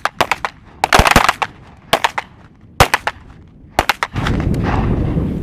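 Pistol shots from several shooters firing single rounds along a firing line: a dozen or so sharp cracks at irregular spacing, some in quick clusters. A steady rush of noise comes in near the end.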